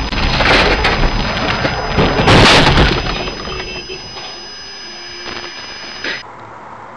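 Car crash heard from inside the crashing car: two loud crashing impacts, the first about half a second in and the louder one about two and a half seconds in, leaving the windscreen cracked. The noise then dies down.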